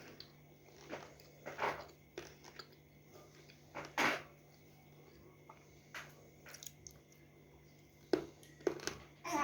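Close-up eating sounds: bites and chewing of a flaky, crumbly layered cake, with a few sharper crunches, the loudest about four seconds in and two more near the end, over a faint steady hum.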